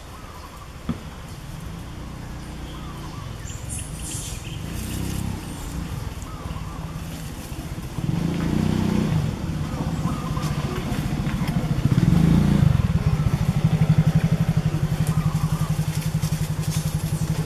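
An engine running, growing louder until about twelve seconds in and then holding a steady, pulsing low note.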